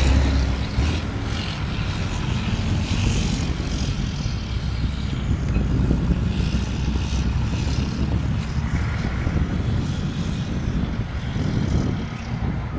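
Steady low outdoor rumble with a hiss above it that swells and fades every second or two.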